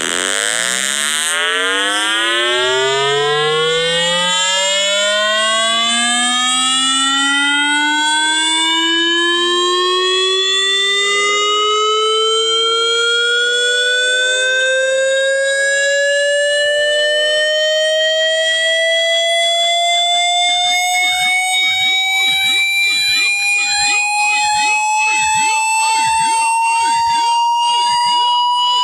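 A tone rich in overtones sliding slowly and steadily upward in pitch, from a low buzz to a high whine, with the climb easing off as it goes. It is played as an irritating sound.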